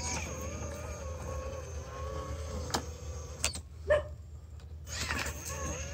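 Whine of an RC rock crawler's brushless electric motor and gears as it creeps over river rocks, its pitch wavering slightly with the throttle. A few sharp clicks come around the middle, and the whine drops out for about a second before picking up again near the end.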